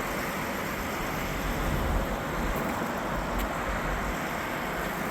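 Steady wash of highway traffic noise, an even roar of passing vehicles with no single one standing out.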